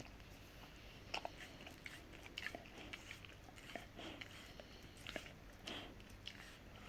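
Rottweiler gnawing a hard hoof chew: faint, irregular crunches and clicks of teeth on hoof, starting about a second in.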